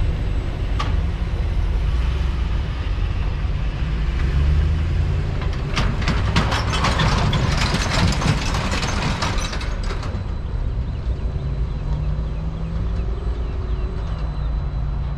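The tail of a freight train rolling away over the rails, a steady low rumble. From about six to ten seconds in, a rapid metallic rattling clatter, the loudest part, from a pickup's empty trailer bouncing across the rail crossing.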